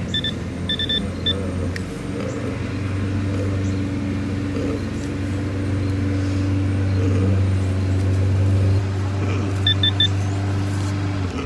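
Metal detector beeping as it is swept over a buried target: about four short electronic beeps in the first second, then three quick beeps near the end. A steady low mechanical hum, like an engine running, carries underneath throughout.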